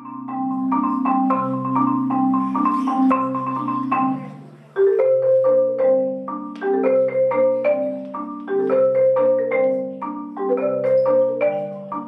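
Marimba played with four yarn mallets: a flowing run of struck notes, low notes ringing under quicker higher ones, with a short break about four and a half seconds in before the playing picks up again.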